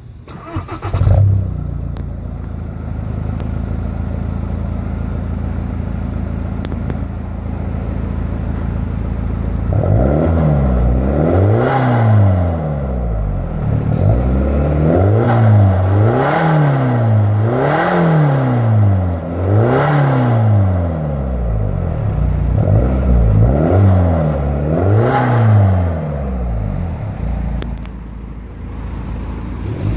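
Seat Exeo 2.0 TDI four-cylinder turbodiesel heard at the exhaust tips. It starts with a short flare about a second in and idles steadily, then from about ten seconds in it is revved again and again in quick blips, the pitch rising and falling each time, before settling back to idle near the end.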